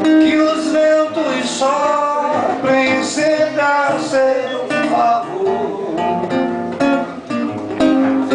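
Classical guitar strummed, with a man singing along to it.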